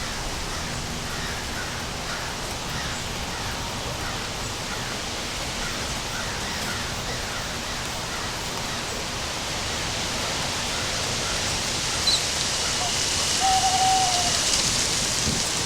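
Steady rain falling, growing a little heavier toward the end, with faint scattered bird chirps and a short whistled bird call near the end.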